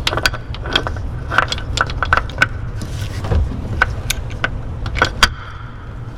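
Metal parts clinking and tapping as a radiator fan hub carrier bearing and its retaining plates are worked into place by hand, over a steady low rumble.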